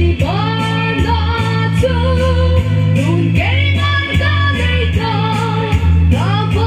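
A woman singing a slow song into a handheld microphone, amplified over a sound system, with instrumental accompaniment carrying a steady beat and bass line.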